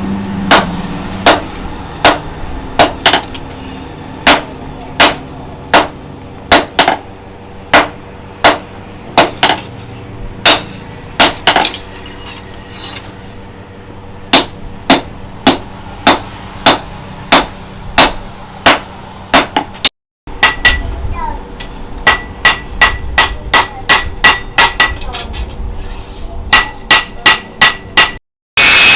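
A hammer striking a steel knife blade on an anvil, an even run of sharp blows at about one and a half a second, with the metal ringing between strikes as the blade is forged. It cuts off briefly twice, and a loud, harsh, steady noise begins at the very end.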